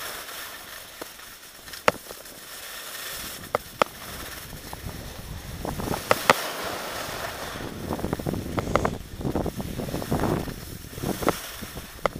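Skis sliding and scraping over packed snow, with wind noise on the microphone. The rush builds from about four seconds in, with scattered sharp clicks and knocks.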